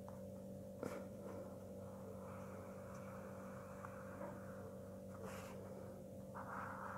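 Faint scratch of a felt-tip marker drawn along paper in long strokes, over a steady low electrical hum; a light click just under a second in.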